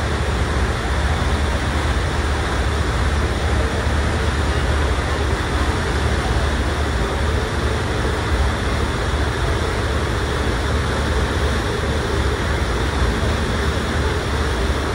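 Ferry under way: a steady low engine rumble under an even rushing noise of water wash.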